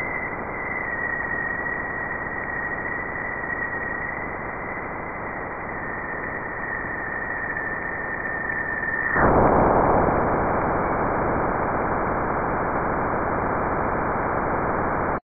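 Plasma-wave data from NASA's Juno spacecraft's Waves instrument, converted to audio, as it crosses Jupiter's bow shock. A steady hiss carries a thin high tone that drifts slightly lower: the upstream plasma oscillations. About nine seconds in, the tone stops and the hiss turns louder and fuller as the spacecraft passes the bow shock.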